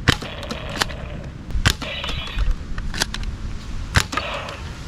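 Toy foam-dart pistol firing at plastic targets: five sharp snaps roughly a second apart.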